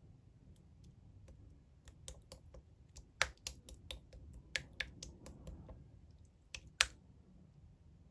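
Clear slime being squeezed and pressed by hand, giving an irregular run of sharp pops and clicks, the loudest about three seconds in and near seven seconds, then stopping.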